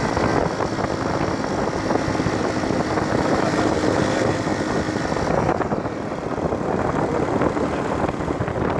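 A vehicle driving along a road: steady engine and road noise from inside the moving vehicle, with a faint engine hum in the first half.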